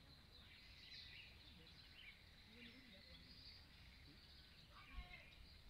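Near silence: faint outdoor ambience with scattered faint high bird chirps and faint distant voices, and a soft low bump about five seconds in.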